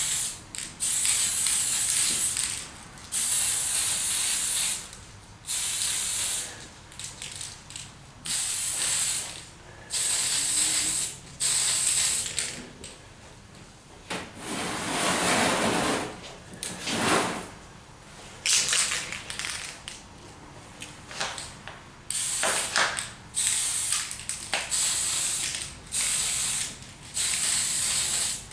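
Aerosol spray-paint can hissing in many short bursts, about a second each with brief pauses between, as dark yellow paint is sprayed on as an undercoat.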